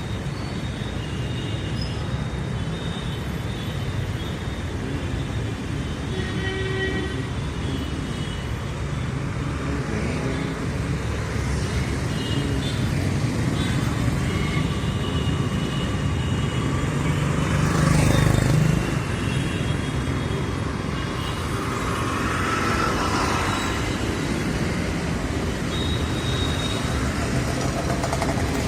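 City street traffic: a steady rumble of engines and tyres with short, scattered horn toots. A vehicle passing close about two-thirds of the way through is the loudest moment, and another passes a few seconds later.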